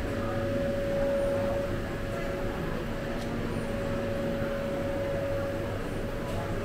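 Steady room hum with a constant mid-pitched whine, consistent with the electric wall fans running in the dining hall.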